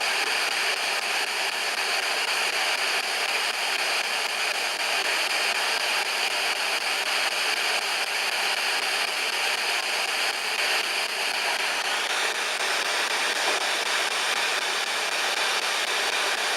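A steady, even hiss of noise with no breaks or distinct events, like a running fan or white noise.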